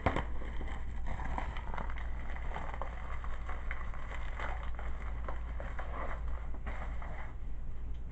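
Hands opening a mailed package: irregular rustling, crinkling and small clicks of the packaging, with a denser half-second rasp near the end, over a steady low hum.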